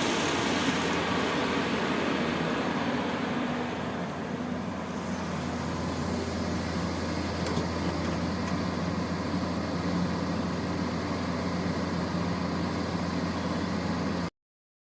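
Heavy diesel engines of queued dump trucks and a loading excavator running with a steady low drone. A higher hiss fades out about four seconds in, and the sound cuts off abruptly just before the end.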